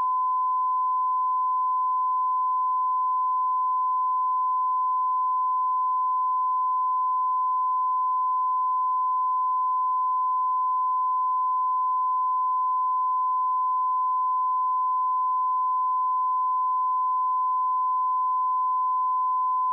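A pure 1015 Hz sine-wave test tone, one steady high beep held at constant level without a break.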